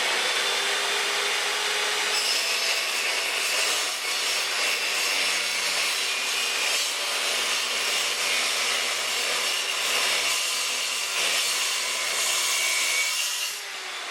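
Milwaukee 6370-21 8-inch metal-cutting circular saw cutting through 3/16-inch steel plate: a steady, loud, high-pitched grinding of the blade in the steel, easing off near the end.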